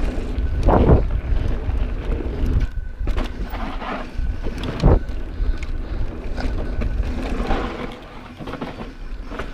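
Wind rushing over an action camera's microphone and the rattle of a mountain bike descending a dirt trail, with a couple of sharper knocks from bumps along the way.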